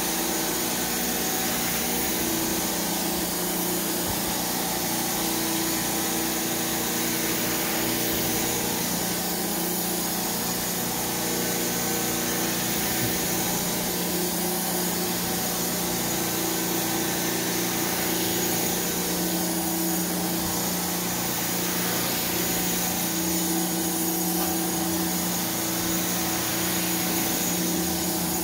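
Carpet-cleaning extractor running steadily as its floor wand is worked over carpet: a constant suction hiss with a steady motor hum underneath.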